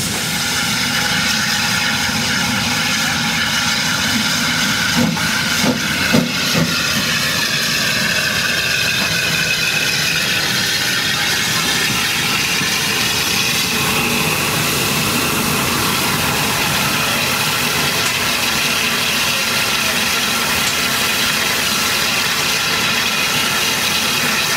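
J94 0-6-0 saddle tank steam locomotive hissing steadily while in steam, with a few sharp knocks about five to six seconds in.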